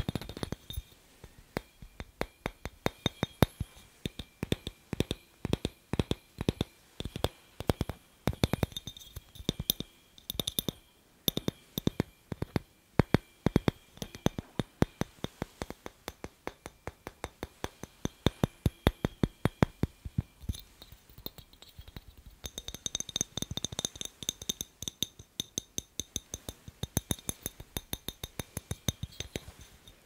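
Fingers tapping fast on the glass of a clear incandescent light bulb: sharp clicks in quick clusters with a faint glassy ring.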